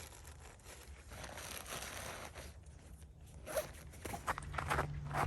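A zipper being pulled, likely on clothing or a bag, then footsteps crunching in snow begin about three and a half seconds in.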